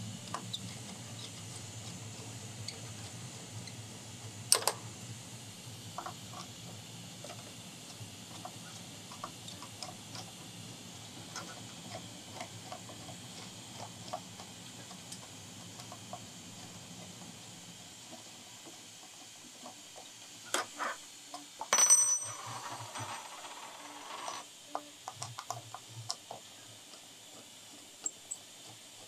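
Screwdriver working the leveling screws of a 3D printer's bed, giving scattered small metallic clicks and taps over a low hum that stops past the middle. About two-thirds through comes a louder metal clatter with a brief ringing, followed by more light clicks.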